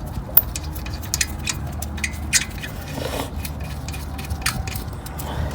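Sharp, irregular metal clicks and clinks of a wrench tightening the brake caliper bolts, over a steady low hum.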